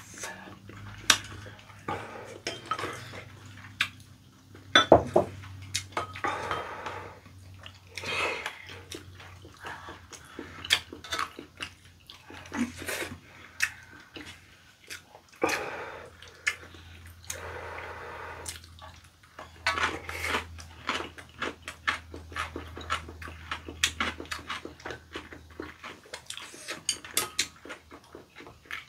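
Chopsticks clicking against ceramic bowls and a pan, with wet slurping and chewing of sauce-coated tteokbokki rice cakes.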